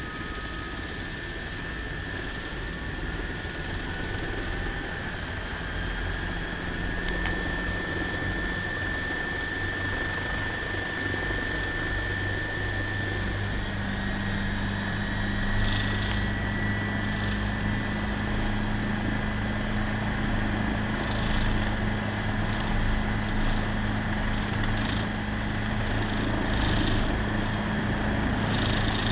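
Helicopter's turbine engine and rotor running up on the pad, heard from inside the cabin: a whine that slowly rises in pitch through the first half while the sound grows steadily louder, with a low steady drone joining in partway through.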